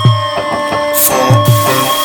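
Background music with a steady beat: deep bass drum hits under sustained keyboard tones, with a hiss swelling in near the end.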